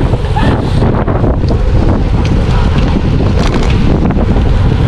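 Loud, steady wind buffeting the microphone of a camera carried on a road bike riding at race speed in a pack, with a low rushing rumble.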